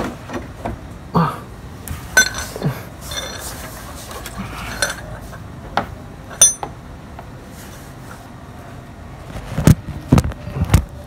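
Scattered metallic clinks and knocks of tools and parts being handled under a car. Near the end come a few louder thumps as the phone camera is handled.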